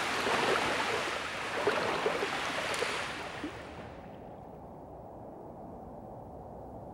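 Rain pouring down, a steady hiss that fades out about four seconds in, leaving a faint low hum.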